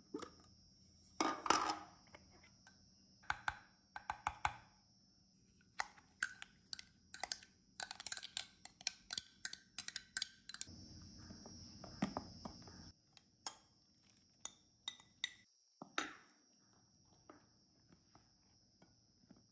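Kitchen utensils and dishes being handled, giving a run of scattered knocks and clinks against bowls and a pan, with a couple of seconds of steady noise around the middle.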